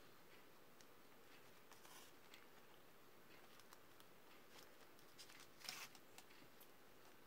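Near silence with faint paper handling: the pages of a handmade paper journal rustling and shifting as it is turned over and pressed flat, a little louder about five and a half seconds in.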